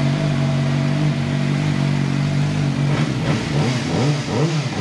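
CFMoto 500SR Voom motorcycle engine idling steadily through its dual exhaust. About three seconds in it is blipped into a run of quick revs, each rising and falling in pitch.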